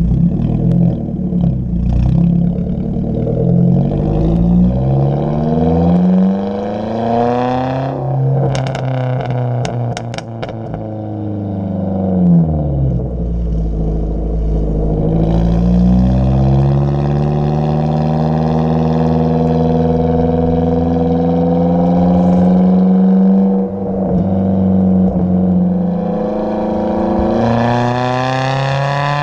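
2014 Ford Focus SE's 2.0-litre four-cylinder running through a muffler- and resonator-deleted exhaust, revs climbing under acceleration and dropping sharply at gear changes. A burst of sharp crackles comes from the exhaust as the revs fall off, about nine to ten seconds in.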